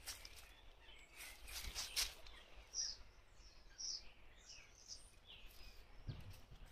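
Dry leaves rustling and crackling underfoot in the first two seconds, then a series of short, high bird chirps.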